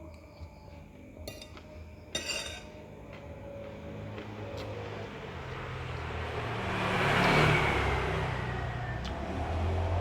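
A motor vehicle passing by: its noise builds over several seconds, is loudest about seven seconds in, then fades. A couple of short clinks about two seconds in.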